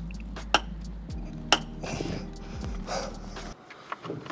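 Hand tools clinking on metal while oil pan bolts are worked loose: two sharp clinks about a second apart and a few fainter ones, over a steady low hum that stops near the end.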